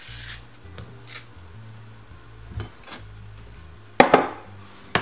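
Knife working through a mango on a cutting board: a few soft scraping strokes, then two sharp knocks about four and five seconds in, over background music.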